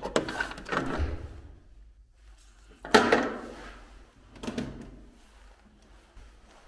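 A cabinet or drawer being handled: four knocks and bangs, the loudest about three seconds in.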